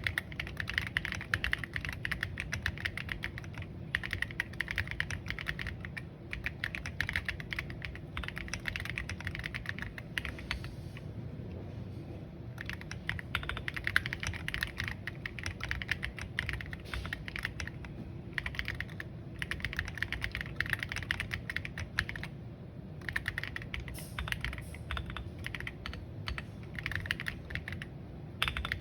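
Fast typing on a Monsgeek M1W mechanical keyboard with MMD Princess 60g tactile switches and tall SA-profile keycaps, key presses clattering in quick runs broken by short pauses.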